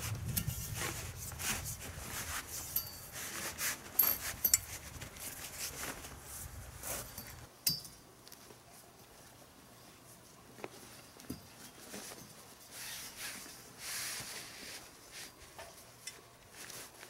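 Carport canvas cover rustling while metal frame tubes are slid through it and joined, with clinks and knocks of the tubes, a few sharp ones about four seconds in.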